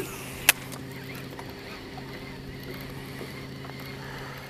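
Steady low hum of a bass boat's bow-mounted electric trolling motor, with one sharp click about half a second in, like a spinning reel's bail snapping shut after a cast. The hum stops near the end.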